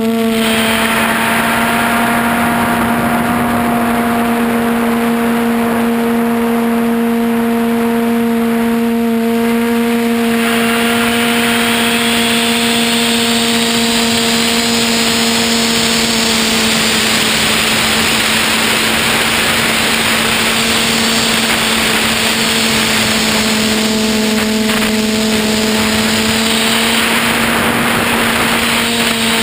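QAV400 quadcopter's brushless motors (MT2212 980 kV) and cut-down 8-inch propellers, heard from the onboard camera in flight: a loud, steady hum at one pitch under a hiss that grows louder about ten seconds in.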